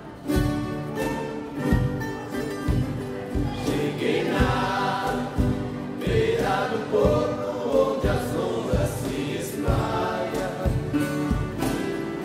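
An ensemble of violas caipiras (Brazilian ten-string folk guitars) strumming a caipira folk song in a steady rhythm, with a group of voices taking up the melody from about three and a half seconds in.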